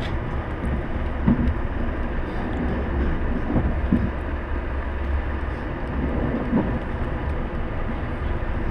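Steady low rumble of a moving passenger train heard from inside the carriage, with a few brief knocks from the running gear.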